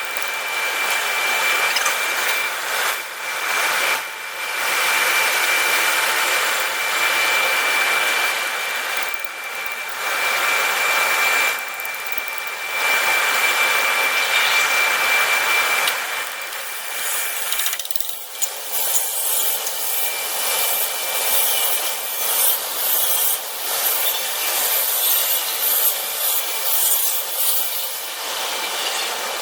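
A power tool running with a steady high whine over rough scraping noise; about two-thirds of the way in the whine stops and the scraping goes on in uneven strokes.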